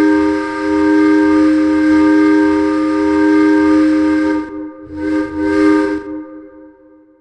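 Ice hockey goal horn sounding a loud, steady chord of several held tones for about four seconds, then after a brief dip a second, shorter blast, fading out near the end.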